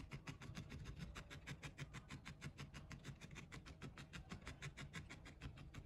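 Single felting needle stabbing quickly and evenly into wool felt, faint soft pokes at roughly eight a second, as the wool is packed down to shape a needle-felted dog's face.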